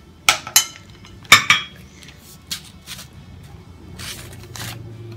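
Small ceramic bowl and spoon clinking against a large ceramic mixing bowl: a few sharp clinks in the first second and a half, the loudest about 1.3 s in. Lighter knocks and short rustles follow as a plastic spice jar is picked up.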